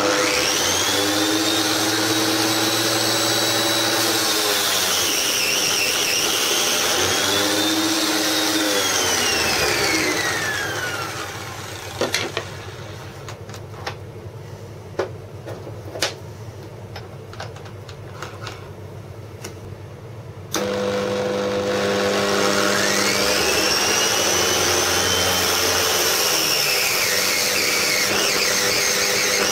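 Angle-grinder-driven spindle sander switched on and running with a high whine that dips in pitch and recovers, then coasting down about ten seconds in. A few knocks follow while it is stopped. It is switched on again about twenty seconds in and runs, its pitch sagging as wood is pressed against the sanding drum.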